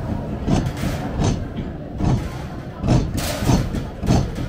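A hand-cranked piston-and-crank demonstration model clunking with each stroke as its handle is turned, a run of dull thuds about one to two a second while the piston drives the wheels round.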